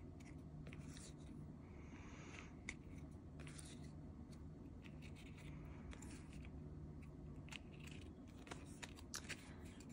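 Faint rubbing slides and soft clicks of photocards being flipped through one at a time in the hands, over a low steady hum.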